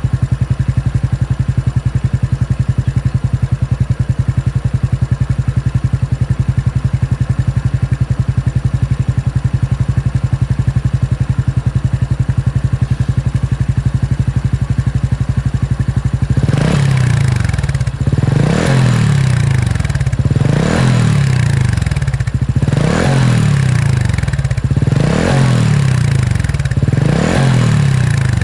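Honda Super Cub 110's single-cylinder four-stroke engine running through a BEAMS R-EVO carbon full exhaust with a down-type silencer: it idles steadily for about half the time, then is revved repeatedly in short blips, the pitch rising and falling about every two seconds.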